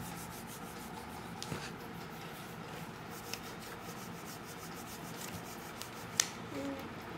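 Faint rubbing and scratching of hands moving over the paper pages of a picture book, with one sharp click about six seconds in.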